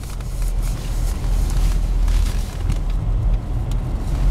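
Car interior hum of the engine running, heard from inside the cabin, as an oncoming car passes close by in a narrow tunnel, its rushing sound swelling in the first couple of seconds and then fading.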